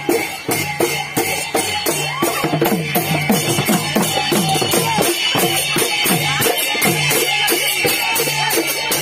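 Music driven by long wooden barrel drums beaten in a fast, steady rhythm, with a held tone underneath.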